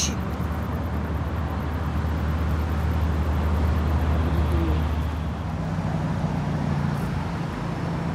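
Road traffic: a motor vehicle's engine running with a steady low hum, which shifts to a higher tone about five seconds in.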